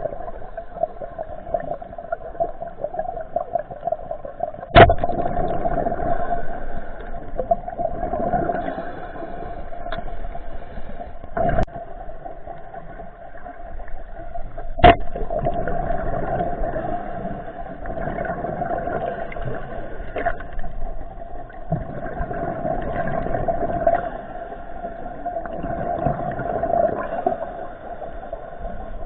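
Muffled underwater ambience heard through a camera underwater, with a steady hum and a few sharp knocks.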